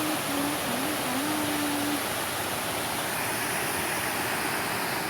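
Fast-flowing river water rushing, a steady noise, with a faint wavering hum in the first two seconds.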